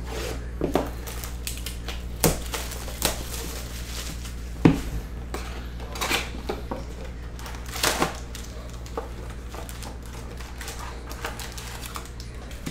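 Football trading card retail box and foil packs being torn open and handled by hand: scattered rips, crinkles and knocks, the sharpest about four and a half seconds in, over a steady low electrical hum.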